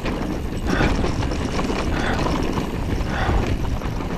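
Mountain bike riding fast down a dirt and stone trail: tyres rumbling over the ground, wind buffeting the microphone, and irregular knocks and rattles from the bike over bumps.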